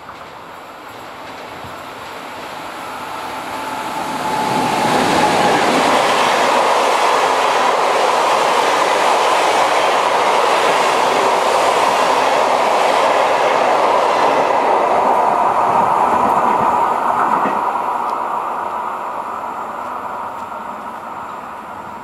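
NSB El 18 electric locomotive and B7 passenger coaches passing at speed. The rush of wheels on rail grows over about five seconds, stays loud for some twelve seconds with a steady whine, then fades as the train draws away.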